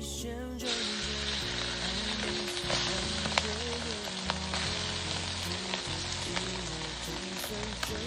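Food sizzling as it fries in hot oil in a pan, starting abruptly less than a second in, with a few sharp clicks.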